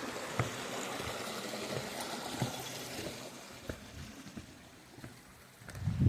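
Creek water running steadily and fading away, with scattered footstep knocks and a louder low thump near the end.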